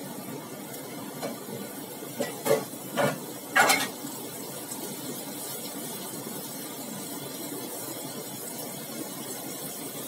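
Chillies, garlic and shallots frying in oil in a wok, a steady sizzle, with three or four short clatters of kitchen utensils between about two and four seconds in.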